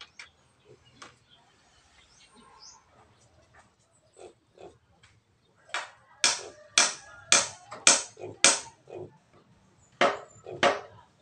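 Short, sharp animal cries: six in a row at about two a second past the middle, then two more near the end.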